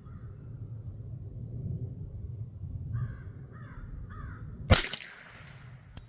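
A single .22 LR shot from a Marlin 795 semi-automatic rifle about three-quarters of the way through, the loudest sound, with a short tail. Shortly before it a crow caws three times, over a low rumble of wind on the microphone.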